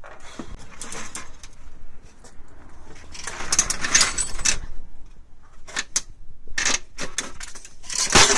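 Scraping, rattling and sharp clicks of hand tools on a laser printer's plastic and metal parts as it is pried apart. There is a louder rasping stretch about three to four and a half seconds in and a sharp snap near the end.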